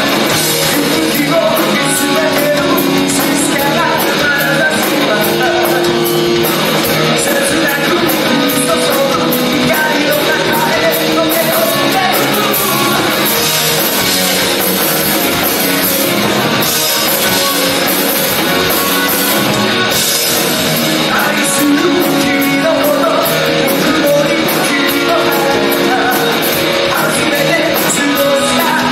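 Live rock band playing a song: electric guitars, bass guitar and a drum kit, with a lead singer.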